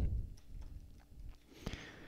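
Quiet room tone with a few faint, scattered clicks, one about three-quarters of a second in and a pair near the end.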